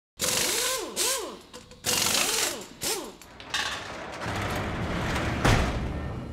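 Sound-effect intro sting of mechanical noises: clanking and ratcheting bursts with short whining tones that rise and fall, then a low rumble that ends in a deep hit about five and a half seconds in, the loudest moment, which rings out.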